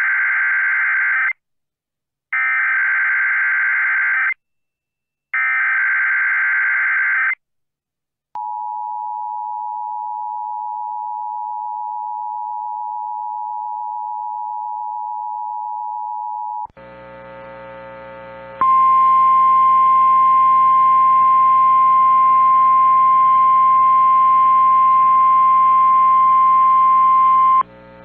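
Emergency Alert System tones from NOAA Weather Radio. First come three bursts of SAME header data tones encoding a tornado watch. Then a steady two-tone attention signal sounds for about eight seconds, followed by a single steady warning alarm tone over a low hum for about nine seconds.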